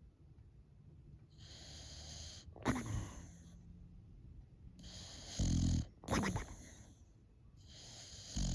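Boxer dog snoring in her sleep: slow breaths, each a hissing draw of air ending in a short snort, about three in all, with one loud low rattling snore about halfway through.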